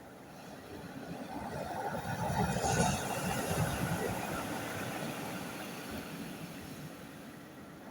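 A sea wave breaking on the shore and washing back. The surge builds to a peak about three seconds in, then slowly subsides.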